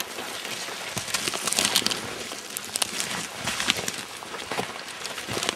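Irregular crackling and rustling, with many sharp clicks at uneven intervals.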